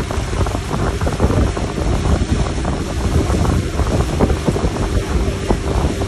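Wind buffeting the microphone over the rushing, churning wake of a fast-moving motorboat, with the boat's engine running underneath.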